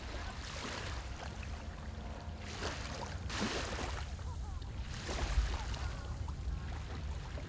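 Sea water churning and splashing, swelling louder a few times, over a steady low rumble.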